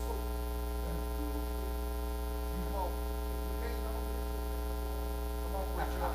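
Steady electrical mains hum with a stack of higher overtones running unchanged through the recording, with faint voices in the background.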